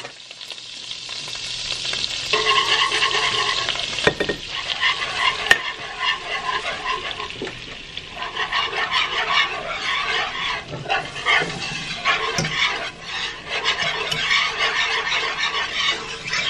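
Butter and flour sizzling in a skillet as a wire whisk stirs them into a roux, with a dense crackle and scattered ticks of the whisk against the pan.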